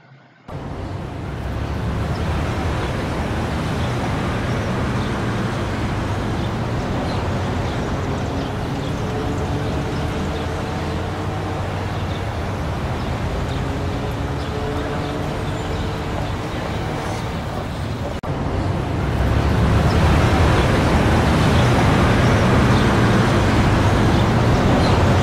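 Loud, steady rumbling noise, heaviest in the low end, with faint pitched tones drifting up and down in the middle. It cuts out for an instant about eighteen seconds in, then comes back louder.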